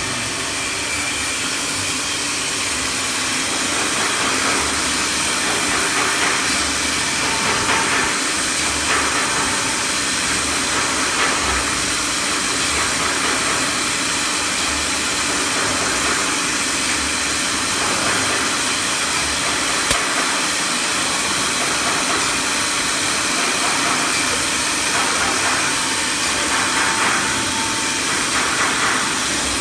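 Wood CNC router running at work: a steady, loud hiss of the spindle and dust extraction, swelling now and then as the cutter works the panel.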